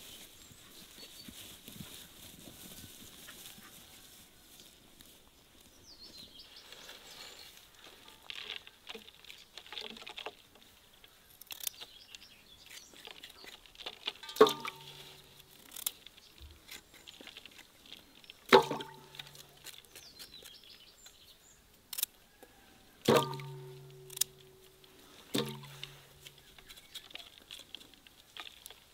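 Carrots dropped one at a time into a wooden crate: four sharp knocks in the second half, each with a short hollow ring from the crate's boards. They sit over a faint outdoor background with a few bird chirps.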